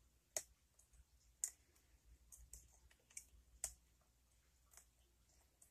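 Faint, irregular clicks of a lock pick and tension wrench working the pins of Fast Charlie's "Only Pins" challenge lock, about eight small clicks spaced half a second to a second apart.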